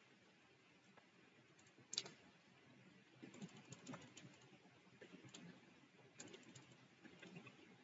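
Faint typing on a computer keyboard: scattered soft key clicks, with one sharper click about two seconds in.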